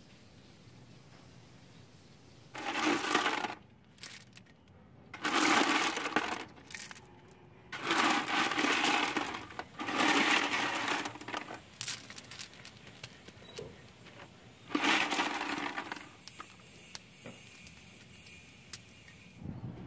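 Small decorative stones clattering against one another as they are tipped out and dropped into place, in five bursts of about a second each.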